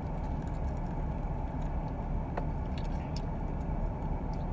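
Steady low rumble of a car cabin with the vehicle running, with a few faint clicks from chewing a corn dog.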